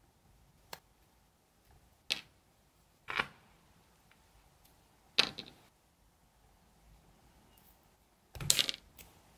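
Sharp little clicks and clatters of false nail tips being pried off with a wooden cuticle stick and dropping onto a desk. There are about five separate clicks a second or more apart, with the loudest clatter near the end.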